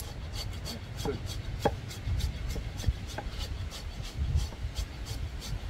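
A hand rasp filing an elephant's toenail in a quick, even run of short scraping strokes during foot-care trimming.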